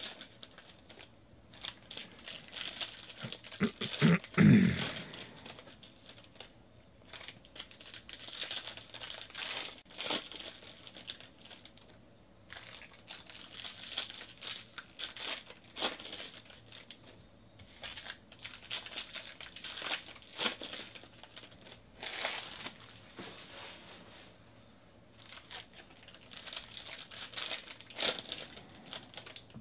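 Foil wrappers of Bowman Draft baseball card packs crinkling and tearing as packs are ripped open and the cards handled, in irregular bursts with short pauses. A brief low sound stands out about four seconds in.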